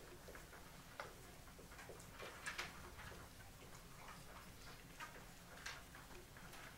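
Faint squeaks and taps of a dry-erase marker writing on a whiteboard, in short irregular strokes, over a low steady room hum.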